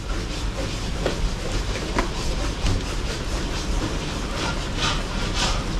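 Steady low rumble and hiss of the wood-fired furnace under a large steaming halwa wok, with a couple of short hisses near the end.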